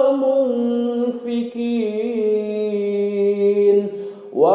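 A man's voice chanting Quran recitation in murottal style, drawing the vowels out into long held notes with small wavers. About four seconds in he pauses briefly for breath, then starts the next phrase with a rising pitch.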